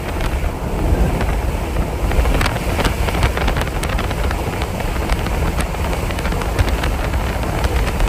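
Strong wind rumbling and buffeting on the microphone, a steady heavy low roar with a few scattered ticks.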